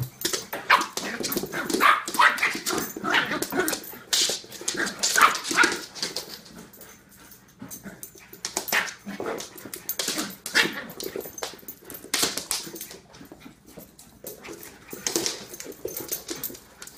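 A puppy and a large poodle at play, giving short, high yips and barks in bursts. The calls are thickest in the first few seconds, ease off around seven seconds in, and pick up again before thinning out near the end.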